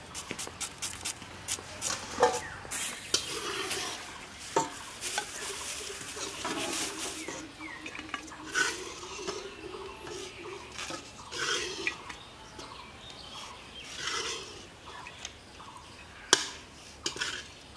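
Red onion and green chillies being cut by hand against a boti, a curved blade fixed on a wooden base: a run of short crisp clicks and taps, with pieces set down on a steel plate.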